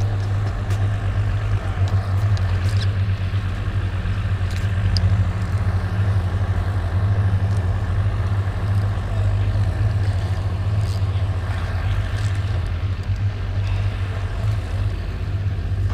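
Steady low engine hum of an idling motor, with a few faint light clicks.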